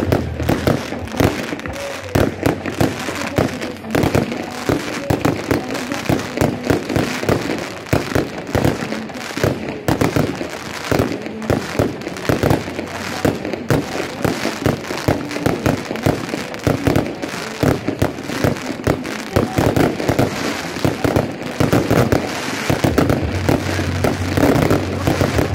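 Aerial fireworks bursting in a dense volley: rapid crackling and popping, several reports a second, with no break.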